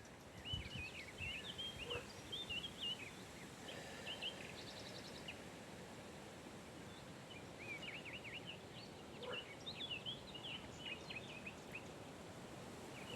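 Birds singing faintly in two bouts of short, quick chirping phrases, with a brief fast trill between them, over a steady outdoor hiss of wind in leaves.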